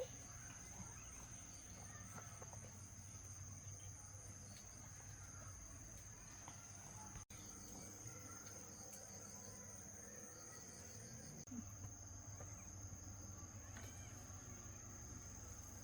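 Faint, steady high-pitched chirring of insects, with a low hum beneath it.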